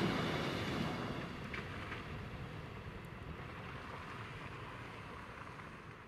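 A van driving away over a wet, puddled gravel track: engine and tyre noise on the wet ground, loudest at first and fading steadily as it goes.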